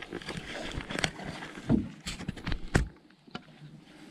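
Canoe being paddled: several sharp knocks and splashy strokes in the first three seconds, then quieter.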